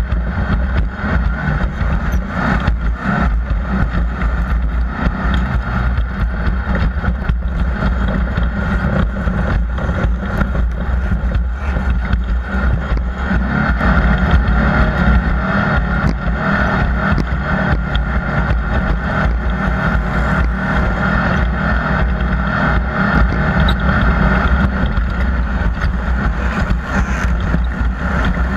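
Off-road race vehicle running steadily: a loud, constant engine and road rumble with frequent rattles and knocks throughout.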